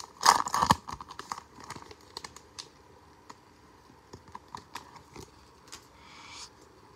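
Foil wrapper of a 2020 Bowman baseball card pack crinkling loudly as it is pulled open, then a run of light clicks and flicks as the cards are slid out and thumbed through one by one.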